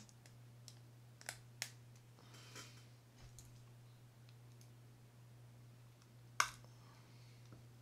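Small metal clicks and a faint scrape of a screwdriver working the side-plate screws of a Shimano Bantam Curado CU-200 baitcasting reel, with one louder sharp click about six and a half seconds in.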